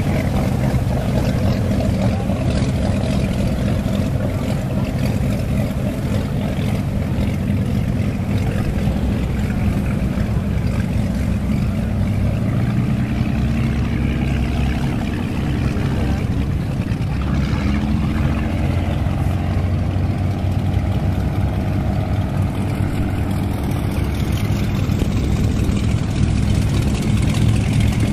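Inboard engines of antique mahogany runabouts running at low speed, a deep steady burble. Partway through, one engine's pitch rises and falls as its throttle changes, and near the end a runabout passing close gets louder.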